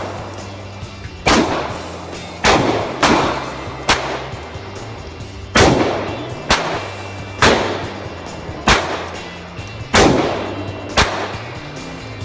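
Semi-automatic handgun shots fired in an indoor range: about ten shots at irregular spacing, some louder and some fainter, each ringing off the range walls.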